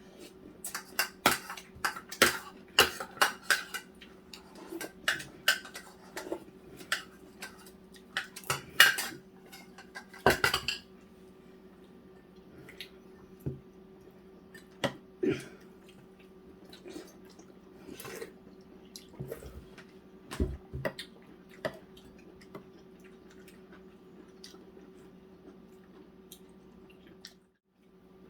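Eating utensils clinking against dishes and bowls at a meal: a quick run of clinks and taps for about the first ten seconds, then scattered ones. A faint steady hum runs underneath.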